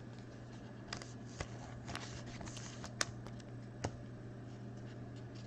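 Trading cards being handled: a few faint sharp clicks and slides of cardboard as cards are pulled and shifted, over a low steady hum.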